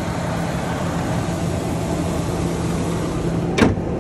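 Dodge Durango's engine idling steadily, then a single sharp slam near the end as its hood is shut.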